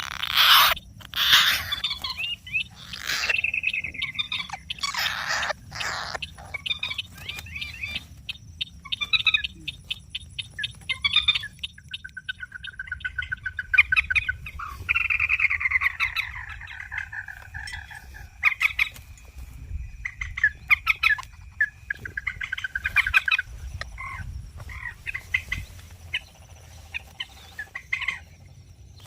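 Common moorhen calls, played as a lure recording to draw birds in: repeated frog-like croaks and clucks, with a fast rattling run about nine seconds in. Steady high-pitched tones run underneath.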